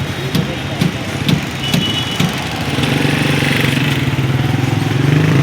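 A motor vehicle engine running. Low thumps come about twice a second for the first two seconds, then a steady hum builds and grows louder about three seconds in.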